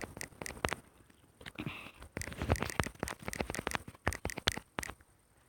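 Quick, irregular taps and clicks of fingers on a mobile phone's touchscreen, pausing briefly about a second in and stopping near the end.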